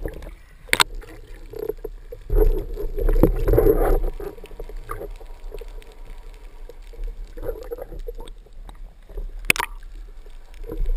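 Water sloshing and gurgling around an underwater camera housing near the surface, in irregular muffled swells over a low rumble. Two sharp knocks against the housing, one about a second in and one near the end.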